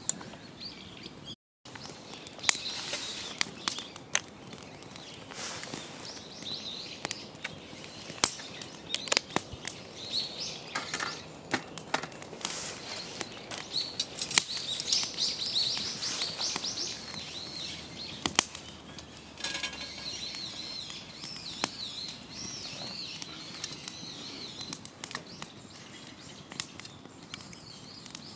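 A wood fire crackling and popping with sharp, irregular cracks. Small birds chirp in the background through the middle and later part.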